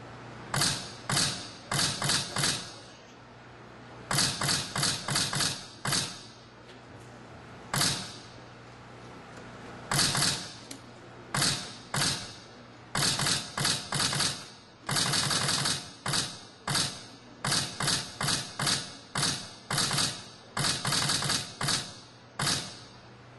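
Camera shutters firing in quick bursts of two to six clicks at a few shots a second, the runs stopping and starting again and again.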